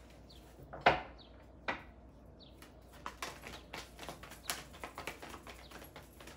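Two sharp knocks about a second in, then a tarot deck shuffled by hand, a quick, irregular run of soft papery clicks as the cards slide and tap against each other.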